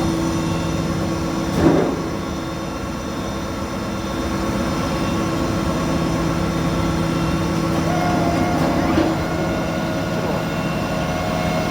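Machine tool running with a steady hum, with a short knock about two seconds in and a smaller one near the end.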